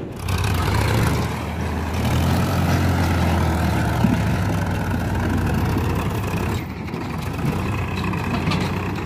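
Powertrac Euro 50 tractor's diesel engine working under load as it tows a trolley up a dirt bank onto the road, its low, steady note easing off about two-thirds of the way through.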